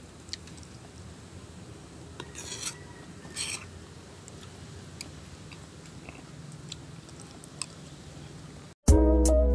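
Quiet spoon-and-bowl sounds: a few light clicks and two short rustling scrapes as a spoon works through a plastic bowl of creamy macaroni salad. Music starts suddenly near the end.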